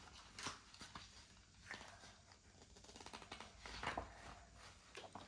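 Faint rustling of paper with a few light clicks and taps: a sticker book being handled.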